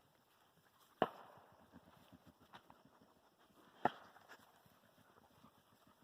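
Two distant fireworks bangs, one about a second in and the other nearly three seconds later, each a sharp report with a short echoing tail.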